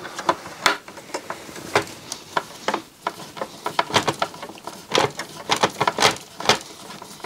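Irregular small clicks, taps and scrapes of fingers handling plastic and metal parts around the drive mechanism of an opened Denon DCD-F100 CD player during reassembly.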